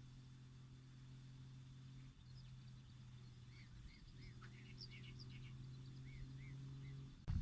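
Faint small-bird calls outdoors: a run of short arched chirps, several in quick pairs, over a steady low hum that drops out briefly twice.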